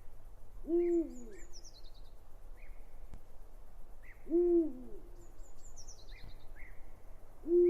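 Owl hooting: three low hoots about three and a half seconds apart, each rising slightly then falling away, with small birds chirping faintly behind.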